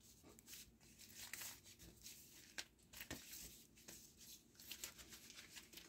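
Faint, scattered rustling and small ticks of packaging being handled and unwrapped.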